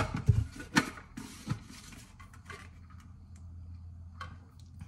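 Plastic tumbler lid being pressed on around a straw: a few sharp plastic clicks in the first second, then a short rustle. After that only a faint steady low hum.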